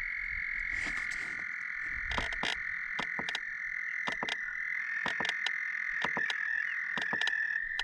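Frogs calling around a pond: a steady high trill underneath, with many short clicking calls at irregular intervals.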